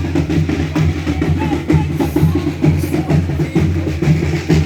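Folia de Reis band playing, with drums beating a rhythm.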